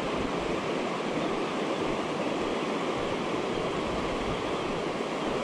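River water rushing over a shallow riffle: a steady, even noise.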